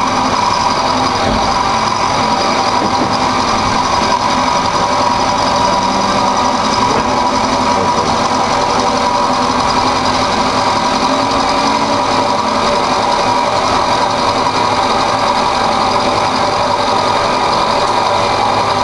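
Benchtop milling machine fitted with a CNC stepper-motor kit, its end mill cutting a circular slot in 3/4-inch metal plate. The motor and the cut make a steady, unbroken mechanical whir with a high hum.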